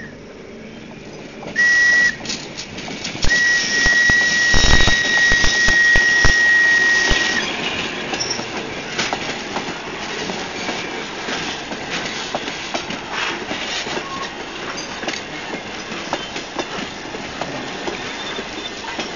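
A locomotive whistle sounds one steady note, first a short blast and then a long one, the tail of a grade-crossing signal. Passenger coaches then roll past close by, their wheels clicking steadily over the rail joints.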